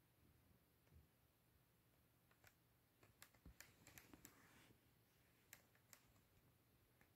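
Near silence: quiet room tone with a handful of faint, sharp clicks in the middle stretch.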